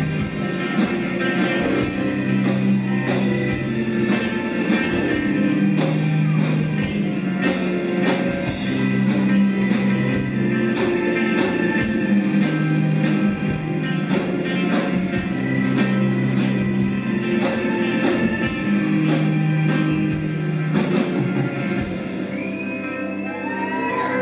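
Live rock band playing an instrumental passage: a repeating bass line under guitar and steady drums. About 21 s in the drumming drops out and the music thins, and high rising whistle-like glides come in near the end.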